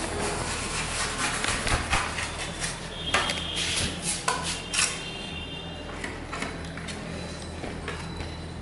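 Metal plastering trowels scraping and clinking against hardened plaster and other tools, in a busy run of scrapes and knocks over the first five seconds, then sparser. A steady low hum runs underneath.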